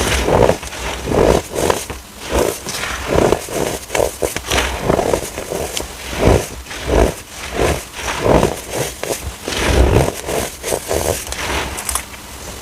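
Chunks of compressed baking soda being squeezed and crushed by hand: repeated crumbly crunches, about one and a half a second.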